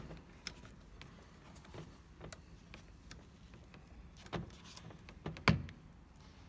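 A few scattered small clicks and taps of plastic and a thin screwdriver as the interior door handle surround is prised out of the Land Cruiser's door trim, the sharpest click near the end.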